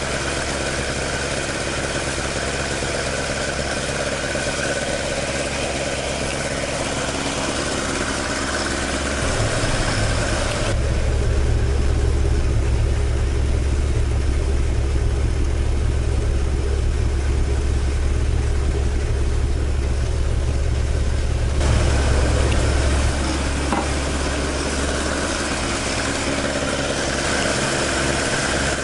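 Toyota AE86's 5-valve (20-valve) 4A-G four-cylinder on twin side-draft carburetors idling steadily, with a noisy induction sound at the engine bay. About ten seconds in the sound turns deeper and louder for about twelve seconds, the exhaust note at the tailpipe, then goes back to the engine-bay sound.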